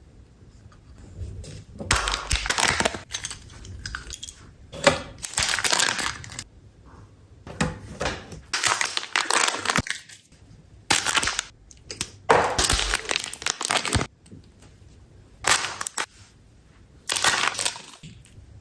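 Kinder Joy eggs being unwrapped and opened: repeated bursts of crinkling and tearing foil wrapper and plastic shell, about a dozen in all, with short quiet gaps between them.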